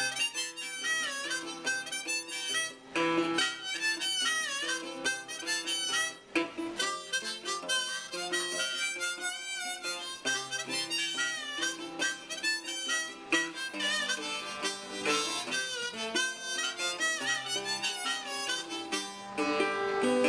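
Blues harmonica solo, notes bending up and down in pitch, over a steady acoustic resonator guitar accompaniment.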